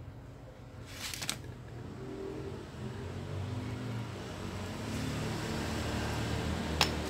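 An engine-driven vehicle running close by, its low steady hum growing gradually louder from about two seconds in. A short cluster of sharp clicks comes about a second in, and a single sharp click comes near the end.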